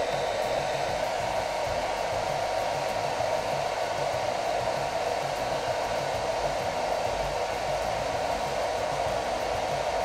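Philips BHD006 1600-watt hair dryer running steadily on its cool-shot setting: an even whoosh of fan-driven air with no change in speed.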